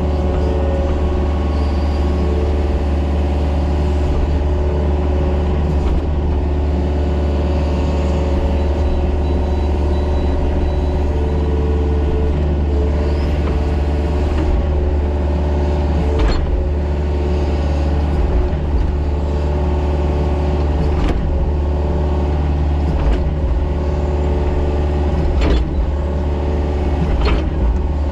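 Mini excavator's diesel engine running steadily while it works, with a few sharp knocks in the second half.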